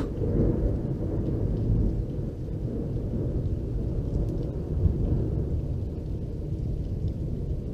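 Thunder from a close lightning strike about 400 m away: a long low rolling rumble that swells a few times and stays loud throughout.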